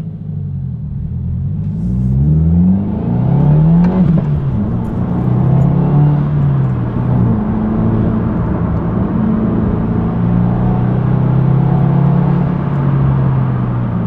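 2022 Subaru WRX's turbocharged flat-four engine pulling hard through an ETS axle-back muffler delete with resonators, heard from inside the cabin. The engine note climbs in rising sweeps that drop back at each gear change over the first four seconds or so, then settles into a steadier note.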